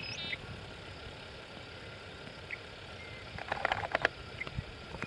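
Outdoor ambience on open prairie: a faint, steady low wind rumble, a brief high bird chirp right at the start, and a short cluster of crisp crackling clicks about three and a half seconds in.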